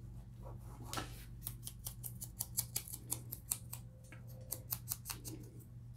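A quick run of small, sharp clicks, about five a second, from hand crafting tools worked on paper, over a steady low hum.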